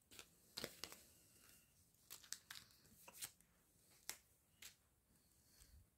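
Faint handling sounds of a cross-stitch kit's cardboard packaging and printed canvas being moved about: a scattered run of short, soft clicks and rustles.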